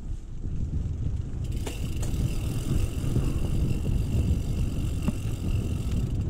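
Mountain bike rolling along a paved path, with wind rumbling on the camera's microphone. A steady high whine comes in about a second and a half in and holds until near the end, with a couple of brief knocks from the bike.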